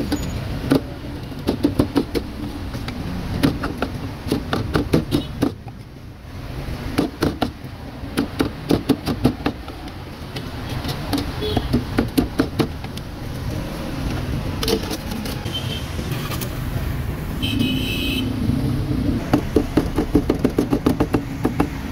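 A cleaver chopping roast meat: runs of rapid, sharp knocks, several a second, with short pauses between runs, over a low background of street traffic.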